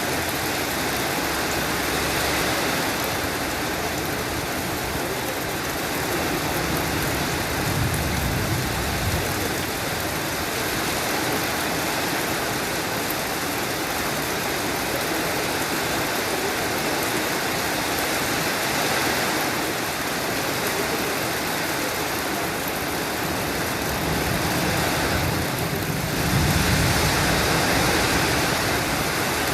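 Steady rain falling, with low rumbles that swell twice: about a quarter of the way in and again near the end.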